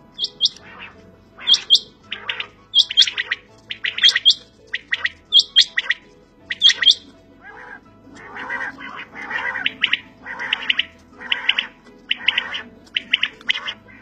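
Quails (batair) calling over and over, in short groups of sharp, high notes. About halfway through, the calls come thicker and faster, roughly two a second.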